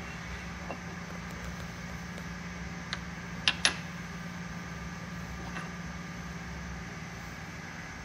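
A few sharp metallic clicks and clinks, a single one and then two in quick succession about three seconds in, as a wrench and the spindle's parts are handled while the grinding wheel comes off a valve refacer. Under them runs a steady low hum.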